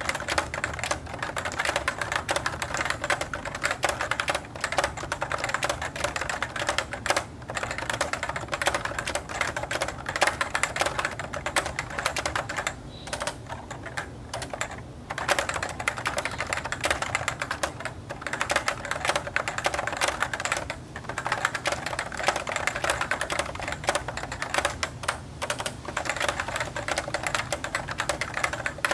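Steady, fast typing on a Cooler Master Novatouch TKL keyboard with Topre switches, fitted with Keyreative KAT profile keycaps: a dense run of key clicks, broken by a few brief pauses midway.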